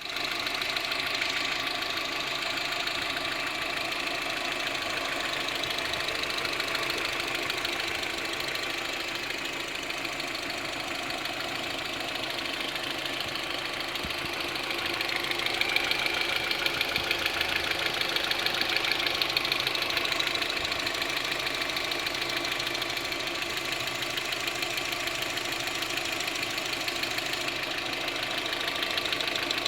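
Audi A6 engine running with a rapid, regular ticking noise. It grows a little louder for a few seconds about halfway through.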